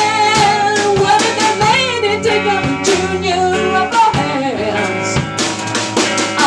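A rock band playing: a female vocalist sings long, wavering notes over a drum kit and electric guitar.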